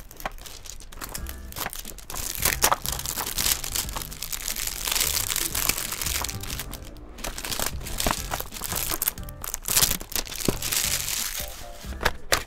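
Clear plastic shrink wrap crinkling in several bouts as it is peeled off a small cardboard box, over light background music.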